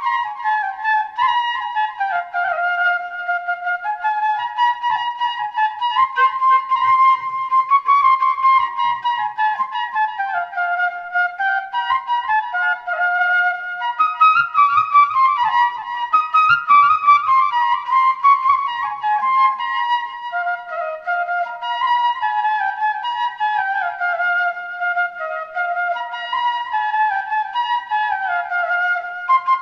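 Background music: a single flute-like wind instrument playing a flowing melody that steps up and down.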